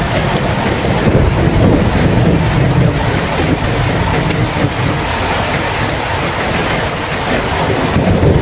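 Steady heavy rain with a continuous low rumble of thunder underneath.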